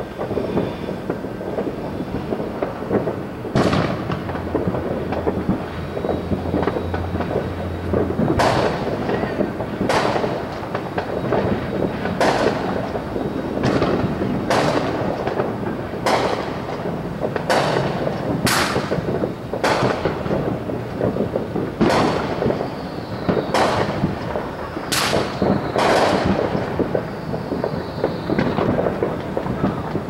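Distant Fourth of July fireworks going off: a constant rumble and crackle of overlapping booms, with sharper bangs standing out roughly every second or two from about three and a half seconds in.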